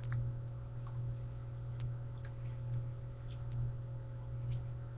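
Steady low hum of webcam room tone, with about seven faint, short ticks scattered through it.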